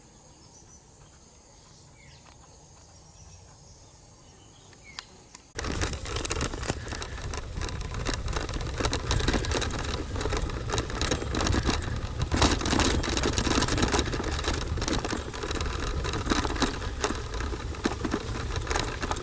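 Faint quiet outdoor ambience with a few thin bird or insect calls, then about five and a half seconds in a sudden switch to a loud, steady rush of wind and road noise with constant rattling and knocking, as from a camera on a moving bicycle.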